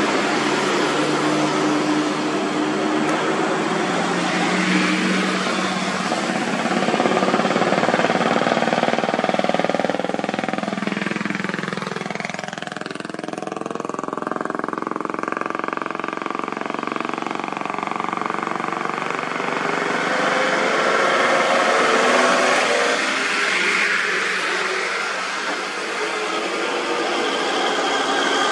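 Trucks and cars passing one after another, their engines running over tyre noise, the engine pitch rising and falling as each vehicle goes by.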